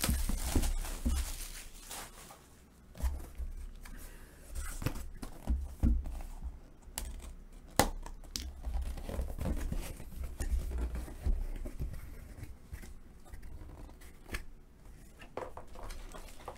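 Plastic shrink-wrap being torn and crinkled off a cardboard box, then the box being handled and its cardboard flap pried open, with scattered knocks and clicks and one sharp click about eight seconds in.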